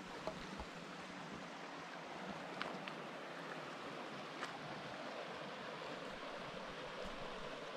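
Small mountain creek flowing over a bed of rocks and gravel: a steady, even rush of water.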